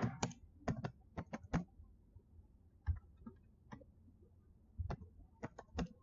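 Computer keyboard typing: a quick run of about seven keystrokes in the first second and a half, then scattered single taps and a short cluster of keystrokes near the end.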